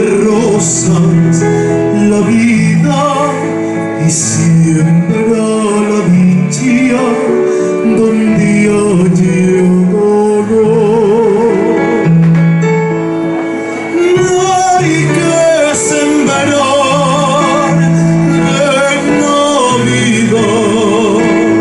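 A male singer singing a Spanish Christmas carol (villancico) into a microphone, with vibrato on long held notes, accompanied by a Korg electronic keyboard.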